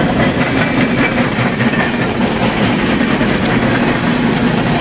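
Freight train of hopper cars rolling past on the nearby track: a loud, steady rumble of wheels on rails, heard from inside a car's cabin.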